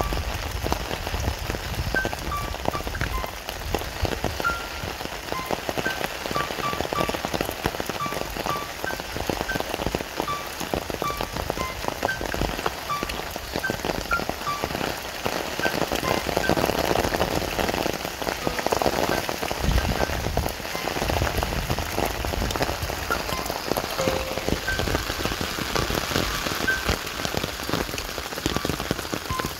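Steady rain falling and pattering on surfaces, with short high plinks dotted through it about once or twice a second.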